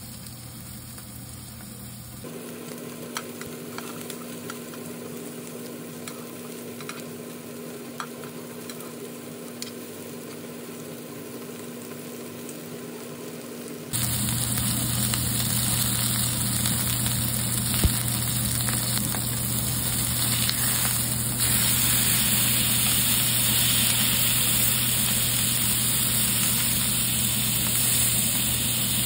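Food frying in a pan. At first the sizzle is quiet under a steady hum with a few light clicks, and about halfway in it turns into a loud, steady sizzle.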